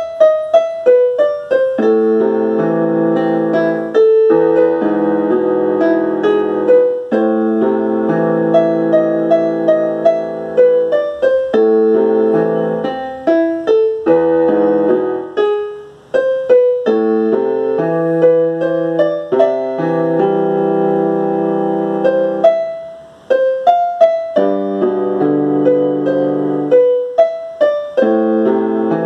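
Electronic keyboard played with a piano sound: a melody of short notes over chords held for two to three seconds each, with the chords dropping out briefly twice.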